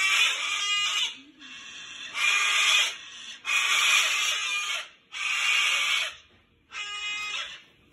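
Sulphur-crested cockatoo giving a series of about six loud, harsh screeches, roughly one a second. These are distress calls from a bird caught in a wire fence.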